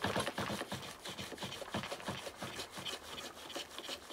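An M1 chamber brush is scrubbed quickly back and forth inside an M1 Garand rifle's chamber, its bristles rasping against the steel. The strokes come several a second and grow fainter toward the end.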